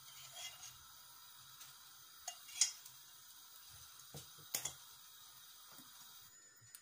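Cooking oil heating in a nonstick kadai on a gas stove: a faint steady hiss with a handful of light ticks, the loudest about two and a half seconds in.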